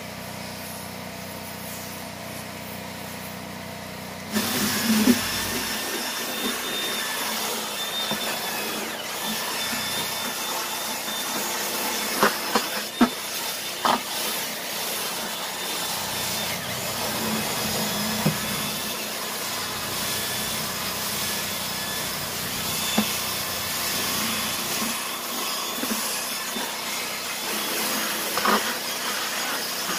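An 18V cordless drill spinning a scrub brush against a plastic truck door panel: a continuous whir of motor and bristles that starts about four seconds in, with a few knocks of the brush against the panel. Before it, a steady low hum.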